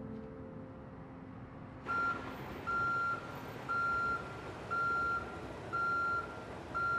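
Vehicle reversing alarm beeping steadily, a single high tone about half a second long repeating about once a second, starting about two seconds in over a steady background hum. Soft music fades out before it.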